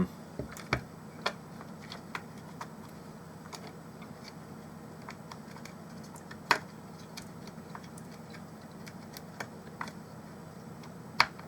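Irregular small clicks and taps of plastic speaker-case parts being handled and pressed together, with a few sharper knocks, one about halfway through and one near the end.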